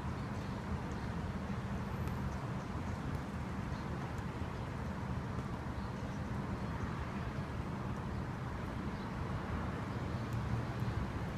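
Steady outdoor background rumble with no clear event, strongest in the low range, with a few faint high ticks.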